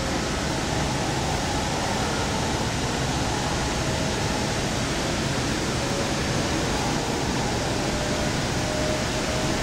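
Steady rushing running noise of a Link light rail train at speed, heard from inside the car, with a faint whine coming and going.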